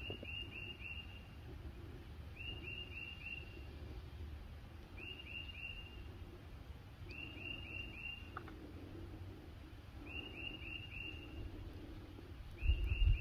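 A songbird sings the same short phrase of four quick, falling notes again and again, about every two and a half seconds, over a low rumble. Near the end a loud low rumble comes in.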